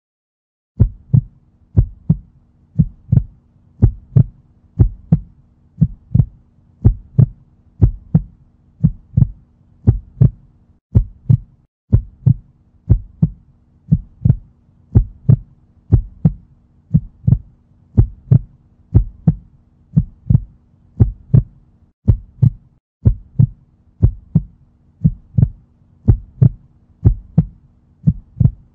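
Heartbeat sound, a steady lub-dub about once a second over a faint low hum, breaking off briefly twice.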